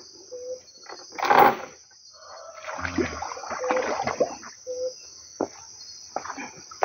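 Water splashing and sloshing around a canoe hull as a man wades into the shallows and handles the boat, in irregular bursts, the strongest about a second and a half in. A steady high insect chorus runs underneath.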